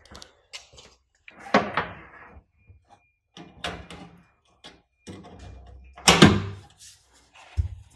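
Irregular knocks and clunks of hand tools and car parts being worked on: a few separate strikes, the loudest about six seconds in and a short low thud near the end.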